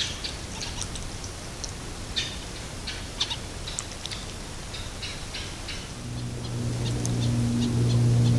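Short, high bird calls and chirps scattered over a faint background. From about six seconds in, a low, steady engine drone builds up and becomes the loudest sound.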